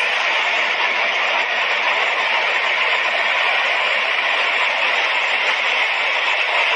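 A landslide: rock and soil pouring down a hillside, making a steady rushing noise with no breaks or separate impacts.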